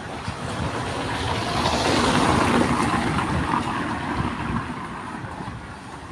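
A car passing at low speed and driving away over a cobblestone street. Its tyre and engine noise swells to a peak about two seconds in, then fades.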